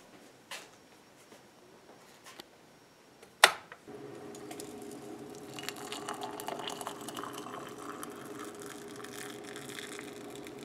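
A few faint taps, a sharp click about three and a half seconds in, then hot water poured steadily from an electric kettle into a ceramic mug holding a tea bag.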